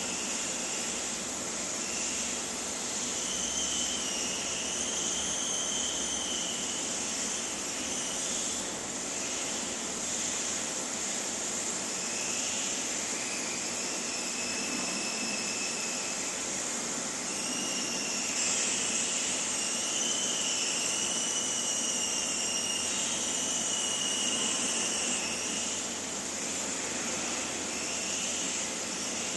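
Gas hissing steadily from a long-nozzle butane utility lighter held burning, with a faint wavering whistle that comes and goes.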